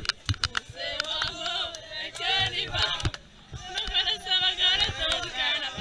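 A group of people singing a chant together, several voices at once, with sharp hand claps among them.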